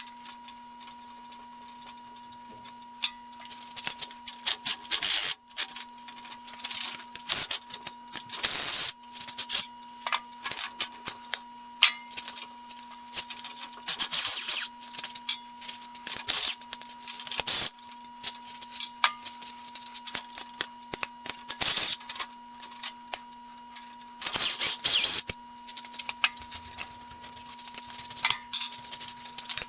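Metal parts and fasteners being handled while the grindstone's base frame is taken apart: irregular clicks and clatters with short scraping and rubbing sounds in clusters, over a faint steady hum.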